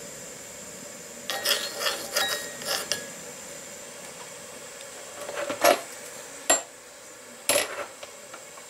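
Miniature cast iron skillet clicking and scraping against the metal stove top as it is tilted to spread the oil, then set down with a few sharp knocks.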